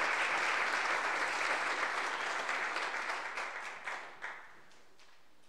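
Audience applauding, the applause thinning to a few separate claps and dying away about four seconds in.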